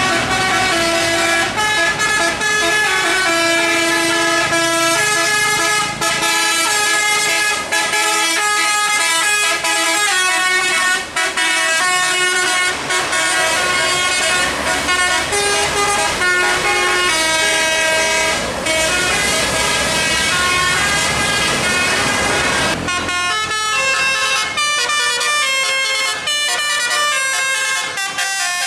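A bus's Basuri telolet musical air horn playing a tune in stepped, held notes over engine and road rumble. About 23 seconds in the rumble drops away and the notes come shorter and quicker.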